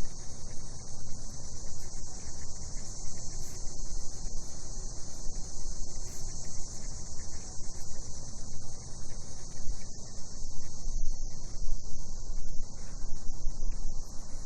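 Cicadas droning in an unbroken high, steady chorus at night, over a low, uneven rumble.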